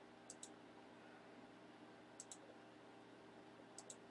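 Three faint pairs of computer mouse clicks, each a quick click-click, over near silence.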